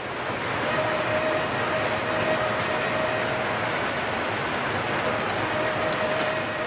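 Heavy rain falling steadily on trees and a roof, a dense even hiss of downpour.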